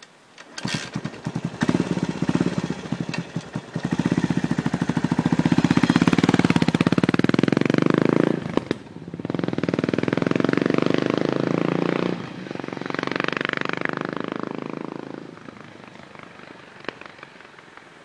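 1982 Yamaha SR500's single-cylinder four-stroke engine through a short megaphone exhaust, loud. It gives a few uneven revs, then accelerates hard, with two breaks for gear changes about nine and twelve seconds in, and fades into the distance near the end.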